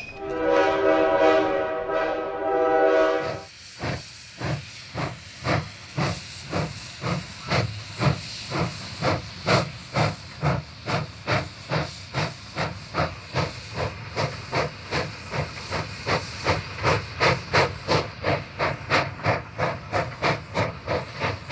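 Nilgiri Mountain Railway steam locomotive blowing its whistle, a chord of several steady tones for about three seconds, then chuffing as it pulls away, the exhaust beats quickening from about two to about three a second.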